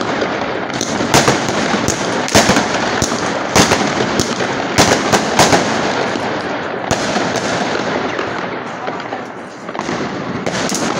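Aerial fireworks going off: a continuous dense crackle of many bursts, cut by sharp bangs about one to three a second. The bangs come less often in the second half, with a brief lull just before another bang near the end.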